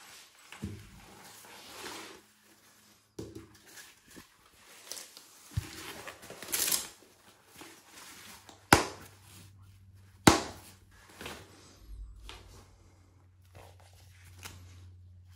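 Motorcycle protective gear being handled: mesh armour and padding rustling, with two sharp knocks of hard plastic protector shells about a second and a half apart, past the middle.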